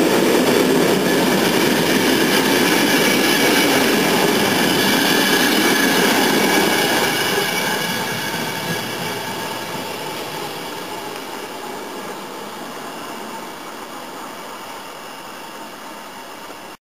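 Passenger coaches rolling past on the track, a dense rumble of wheels with a thin squeal over it, fading gradually from about six seconds in as the train draws away.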